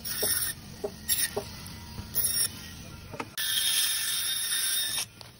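Band saw blade cutting through frozen fish: short hissing, rasping cuts about a second apart, then a longer cut of about a second and a half near the end, with a few light knocks in between.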